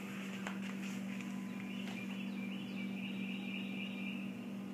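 A steady low hum, with a faint high-pitched whine for a couple of seconds in the middle.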